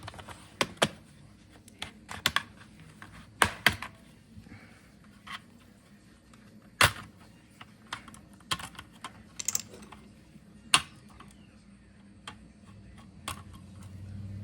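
Scattered sharp plastic clicks and taps from handling a laptop, about a dozen irregular strokes, the loudest about seven and eleven seconds in.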